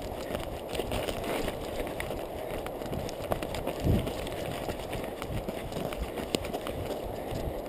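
A runner's footsteps and the brush of undergrowth while running over forest moss, grass and rock, picked up close by a chest-mounted camera, with scattered light knocks and one heavier thump about four seconds in.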